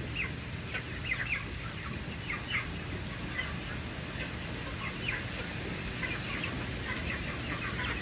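A flock of young chickens calling, a steady stream of short, high chirps and clucks overlapping.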